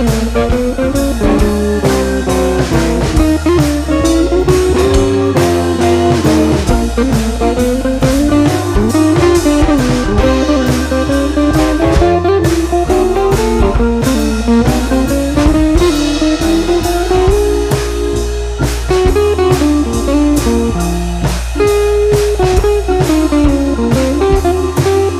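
Background music: a blues-style guitar tune with a bass line and a steady drum-kit beat.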